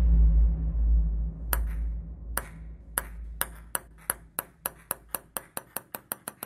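A table tennis ball bouncing on a hard surface, its clicks coming quicker and quicker and fading as it settles, starting about a second and a half in. A deep rumble fades out over the first two seconds.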